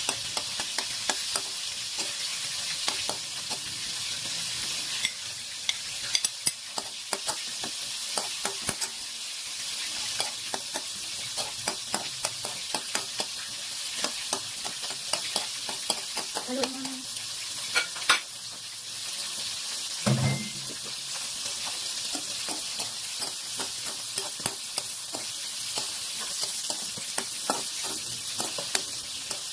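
Sliced carrots, garlic, ginger and onion sizzling in oil in a metal wok while being stir-fried, with the spatula clicking and scraping against the pan many times over a steady hiss.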